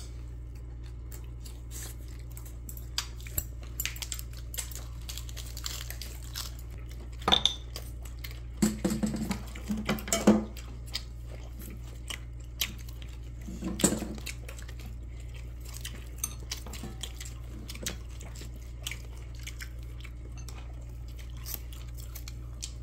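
Metal chopsticks and dishes clicking and clattering at a meal table, over a steady low hum. The knocks grow louder and come in clusters about seven to ten seconds in, and again around fourteen seconds.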